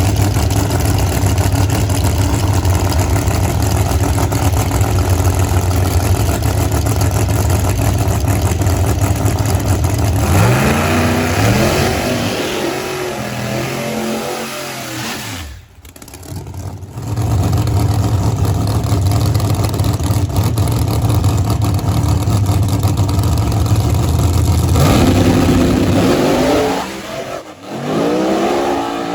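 Drag racing cars running at full throttle, loud and dense. About ten seconds in, and again near the end, the sound drops and the engine pitch glides up and down as the car comes off the throttle.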